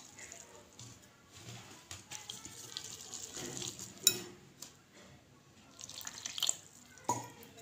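Wire whisk stirring a thin batter of flour and liquid in a glass bowl: faint wet mixing with a few sharp clicks, the loudest about four seconds in.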